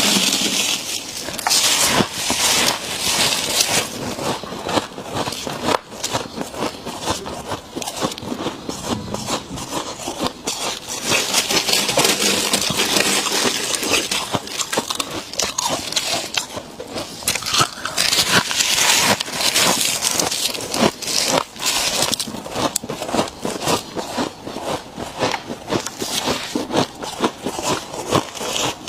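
Freezer frost being bitten and chewed straight from the freezer, a dense, continuous run of close-up crunching and crackling.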